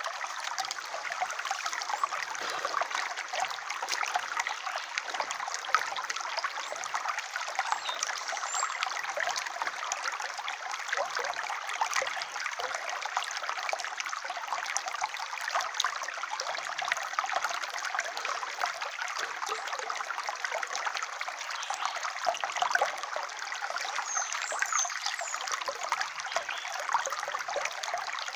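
Shallow rocky stream trickling steadily over stones, with a few faint high chirps near the end.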